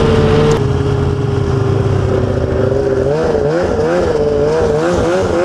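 Ski-Doo snowmobile engine running under way, heard from the saddle. Its pitch holds steady at first, then from about three seconds in it rises and falls quickly several times.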